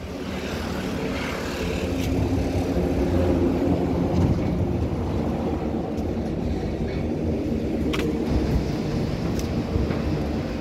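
Car tyres running on a steel open-grid bridge deck: a loud droning hum that swells over the first couple of seconds and then holds steady.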